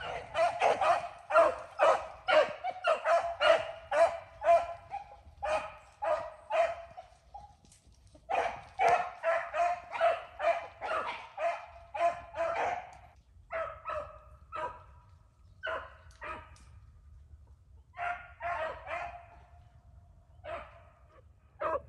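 Beagle pack baying while running a rabbit on its trail: fast runs of barks, about two or three a second, thinning out in the second half with short pauses between runs.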